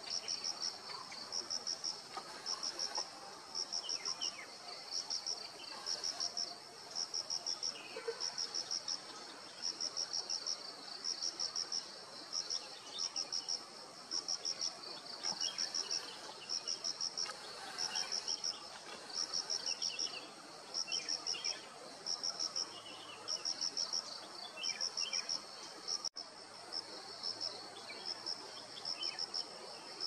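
An insect chirping steadily in the forest: short rattles of quick, high pulses repeated about once or twice a second, with faint bird calls behind.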